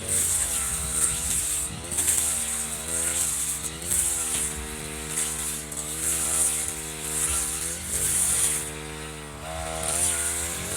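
Echo RM435 brush cutter's small two-stroke engine running and revving up and down over and over, its pitch rising and falling every second or two.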